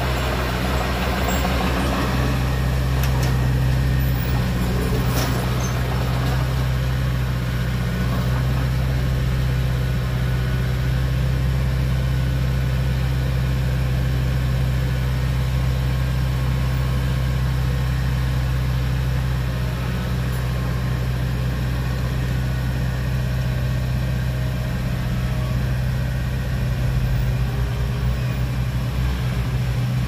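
Diesel engine of a small crawler bulldozer running steadily with a low, even drone while it pushes soil.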